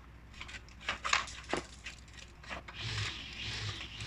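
Grill parts being handled: a few light clicks and knocks, then a rough rubbing scrape from about three seconds in as a part is slid and set in place.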